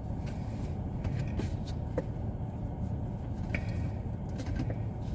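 Steady low background rumble, with a few faint clicks scattered through it.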